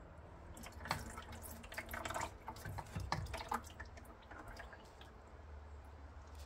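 Oil dripping and splashing from a Haldex coupling into a catch container as its pump is worked loose, with small clicks and knocks from handling the pump.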